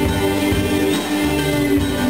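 Bluegrass band playing live, with acoustic guitar, mandolin and upright bass, in an instrumental passage.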